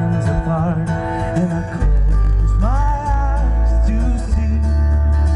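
Live band music heard from the crowd: a singer over strummed acoustic guitar and keyboards, with a heavy bass coming in about two seconds in.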